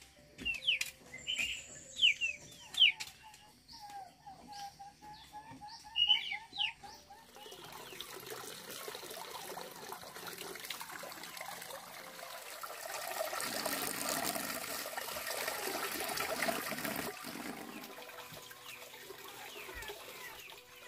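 Small birds chirping sharply for the first several seconds, with a quick run of repeated notes, then a swelling hiss of running and splashing water as leaves and jengkol in a woven basket are washed in a pond fed by a pouring pipe; the water is loudest about two-thirds of the way through and fades near the end.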